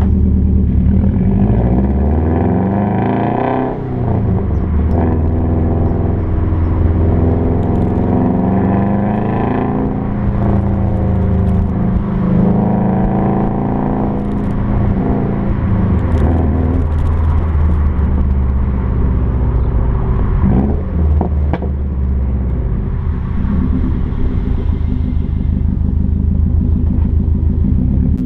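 Exhaust note of a 2016 Subaru WRX STI's turbocharged 2.5-litre boxer four, through a stock exhaust with the axle-back mufflers and the resonators deleted, heard while driving. A deep rumble, with the pitch climbing under throttle and dropping at each shift several times over.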